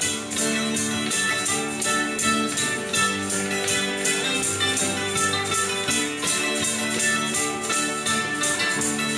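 Instrumental break of a country-rock song played live on electric guitar and mandolin, with held notes over a steady beat and no singing.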